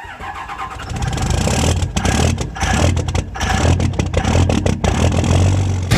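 Diesel pickup truck engine revving hard, climbing in level over the first second and then running loud and steady with a clattering edge.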